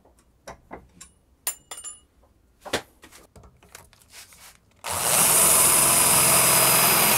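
Small metallic clinks and knocks, a couple ringing briefly, as a small metal angle bracket is set in a bench vise. About five seconds in, a cordless drill starts boring through the metal bracket, a loud, steady drilling noise.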